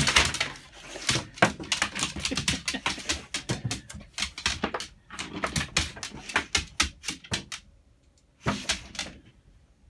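A dog's claws clicking and skittering rapidly on a vinyl kitchen floor as it scrambles about hunting for treats, with a short final flurry near the end.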